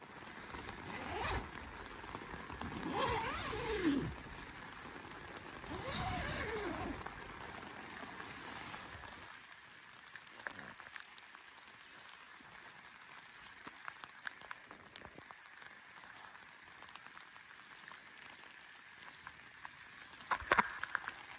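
Tent door zipper pulled open in two long strokes in the first several seconds, then light rain pattering on the nylon tent fabric, with scattered drop ticks and a short cluster of louder clicks near the end.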